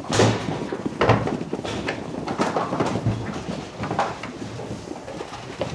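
A handful of irregular knocks and clattering bumps, about a second apart.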